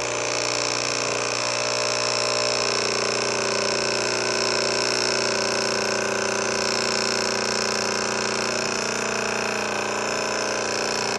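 DeLonghi Nespresso Inissia's pump running steadily while the long-cup button is held down to program the cup size. It cuts off suddenly at the end as the button is released.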